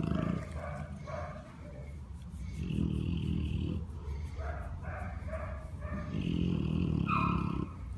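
A Dogue de Bordeaux making low, drawn-out vocal rumbles, twice, each lasting about a second: once near the middle and once near the end.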